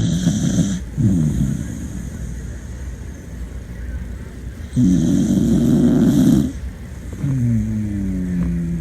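A beagle snoring while asleep: short rumbly snores in the first second and a half, a louder, longer rattling snore in the middle, then a drawn-out breath that slides down in pitch near the end.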